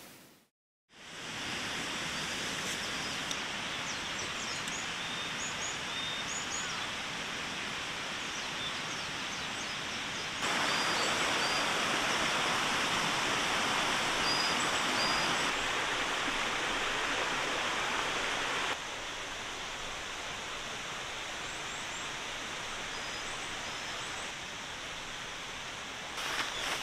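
Steady rushing of a flowing stream with small birds chirping over it; the level steps up about ten seconds in and drops back several seconds later.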